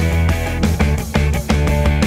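Background rock music with a steady beat, guitar and a bass line.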